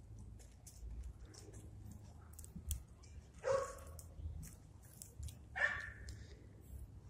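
A dog barking twice, once about three and a half seconds in and again about two seconds later.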